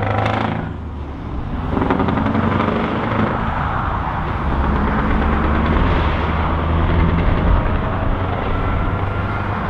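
Scania R580's V8 diesel engine running loud through open exhaust pipes as the truck drives away. There is a deep steady rumble, and the note drops briefly about a second in, then pulls on loud and steady.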